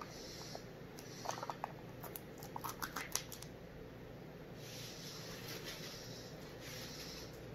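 Plastic baby food cup being opened: its peel-off lid and packaging crinkle and crackle in two short clusters, one just over a second in and another around three seconds in.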